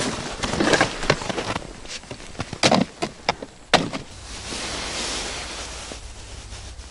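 Footsteps in snow and gear being handled, with a few sharp knocks between about two and four seconds in as gear is set down on the ice; then a steady hiss.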